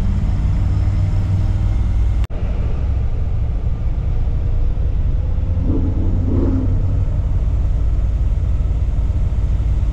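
Engine of a 1950s Chevrolet heard from inside its cabin, running with a low, steady rumble while creeping along in slow traffic. The sound cuts out for an instant about two seconds in.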